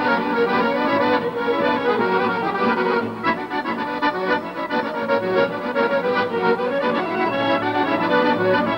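Traditional Macedonian folk dance music from Povardarje, an accordion carrying the melody over a steady beat that grows more marked about three seconds in.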